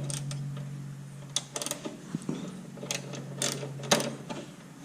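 Hand wrench or socket ratchet working a bolt loose, with scattered metallic clicks over a steady low hum.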